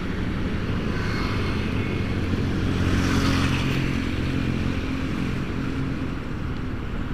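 Motorcycle engine running steadily while cruising, with wind and road noise. The hiss swells slightly about three seconds in.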